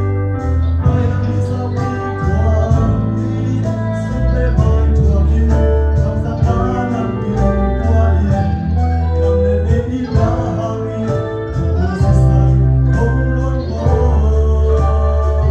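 A live band playing a slow song: a male vocalist sings into a microphone over electric bass and electric guitar, with long-held bass notes and sustained chords.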